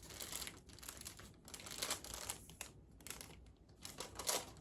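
Paper-and-plastic wrapper of a sterile glove pack being unfolded and handled, crinkling in irregular bursts, loudest about two seconds in and again near the end.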